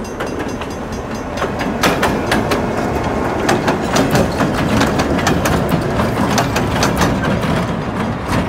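Diesel locomotives passing close by: a steady low engine rumble with many sharp, irregular clacks and knocks from the wheels on the rails.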